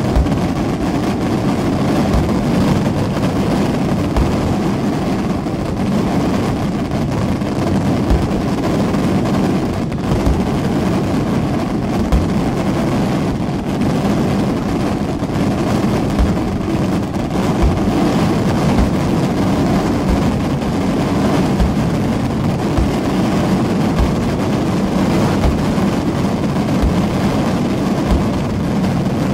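Daytime fireworks barrage: a continuous, loud roar of rapid explosions, with heavier booms standing out every second or two.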